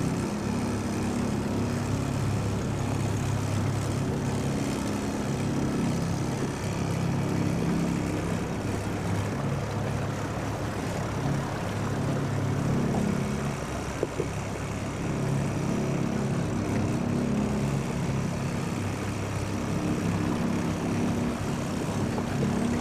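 A boat's motor running steadily, a low droning hum that rises and falls a little in level.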